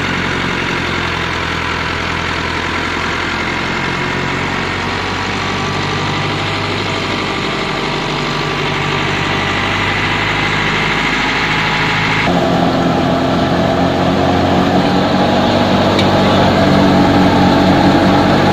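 Massey Ferguson 385 tractor's four-cylinder diesel engine running steadily under load, powering a wheat thresher. About twelve seconds in the sound changes abruptly to a louder, closer running of the thresher itself.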